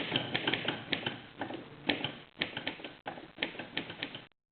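Corona 4 portable manual typewriter being typed on: a run of irregular key strikes, several a second, with short pauses between bursts. The sound cuts out briefly near the end.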